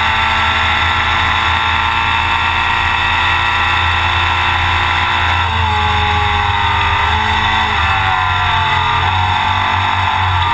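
Off-road race truck's engine running hard under way, heard from inside the cab over road noise. About halfway through, the engine pitch drops and then wavers up and down.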